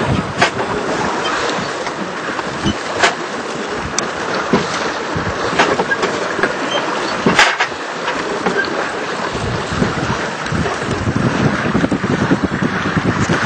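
Wind and water rushing past a small sailboat under way under mainsail alone, with a few sharp clicks or knocks scattered through, and a deeper rumble of water building near the end.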